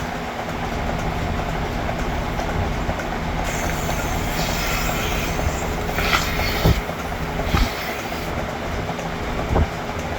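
Dairy milking equipment running with a steady mechanical hum. An airy hiss comes in about three and a half seconds in and fades near eight seconds, and there are a few sharp knocks in the second half.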